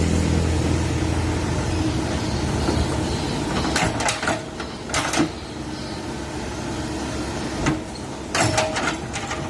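Komatsu PC130 excavator's diesel engine running hard, easing off after about two seconds, followed by a series of short, sharp clanks and knocks from about four seconds in.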